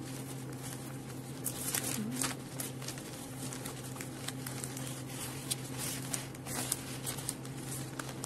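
Sheets of wrapping paper rustling and crinkling in short, irregular rustles as they are handled and laid flat, over a steady low hum.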